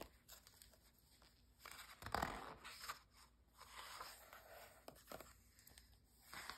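Glossy magazine page being turned: one crisp paper rustle about two seconds in. Softer rustling follows as a hand presses the page flat.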